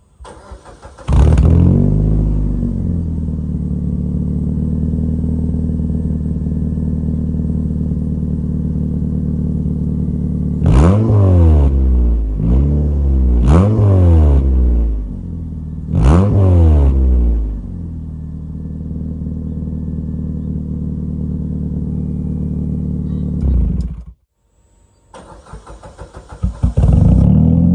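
Suzuki Swift Sport ZC31S's 1.6-litre four-cylinder engine breathing through a Bootspot aftermarket muffler: it is cranked and catches about a second in, settles to a steady idle, and is blipped up and back down four times. Shortly before the end it is switched off, then cranked and started again.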